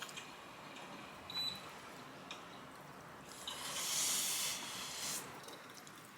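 A click about a second in, then a high hiss lasting about a second and a half past the halfway point.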